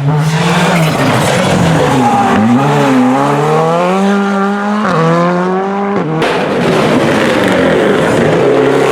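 Rally car engine at high revs: the pitch dips, then climbs, drops sharply about five seconds in like an upshift, and the car comes through with a louder rush of noise from about six seconds on.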